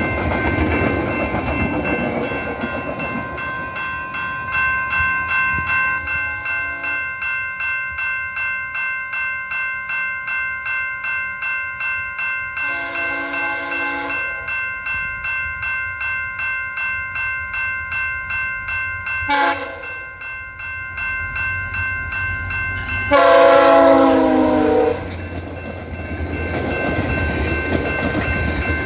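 A passing train's air horn sounds: a blast about a second long roughly a third of the way in, a very short toot about two-thirds in, then a loud, longer blast of about two seconds near the end. Under it runs the noise of the train with a rhythmic clicking about twice a second.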